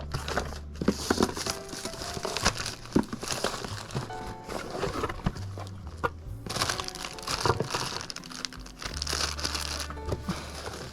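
Plastic packaging crinkling and rustling, with scattered small clicks, over background music with sustained bass notes.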